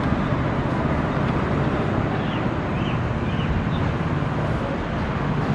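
Steady outdoor traffic rumble at an even level, with a few faint short high chirps in the middle.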